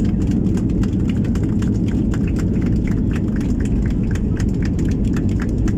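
Cabin noise of a Boeing 737-800 on its landing rollout: a loud, steady low rumble from the wheels on the runway and the engines, with a constant patter of small clicks and rattles.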